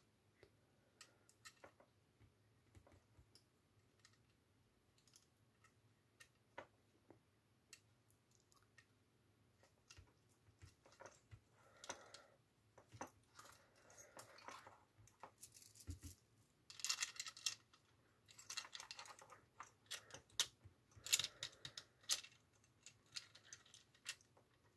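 Small clicks and rattles of a scale-model dozer's track and running gear being handled and fitted by hand: faint scattered clicks at first, then busier clicking and rattling from about ten seconds in.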